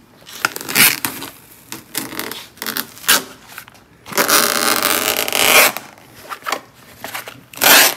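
Hand tool scraping and knocking at the rusty body metal and old Bondo body filler of a Porsche 914. Scattered clicks and short scrapes, with one loud scrape lasting about a second and a half in the middle and another near the end.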